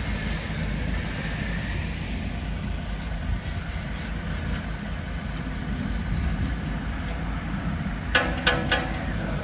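Small excavator's diesel engine running steadily at low revs. Near the end come three quick, sharp ringing clanks in under a second.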